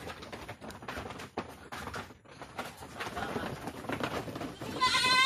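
Goats' hooves scuffling and knocking on a slatted wooden floor as a goat is caught and handled, then near the end a goat bleats loudly, one call that rises and then falls.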